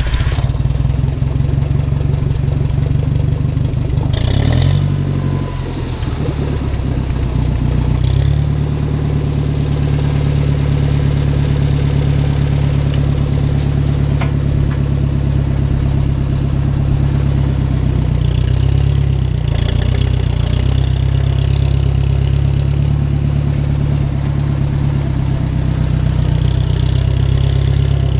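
Small farm tractor's engine, freshly started, running steadily. Its note shifts a few times: about four to five seconds in, near eight seconds and again around eighteen to twenty seconds.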